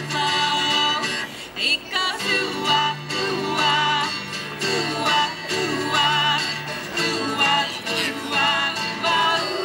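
Upbeat song playing, a sung melody over a steady beat.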